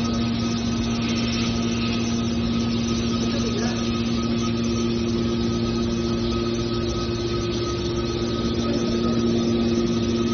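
Metal baler running steadily: a constant machine hum with several steady whining tones over an even noise, unchanging throughout.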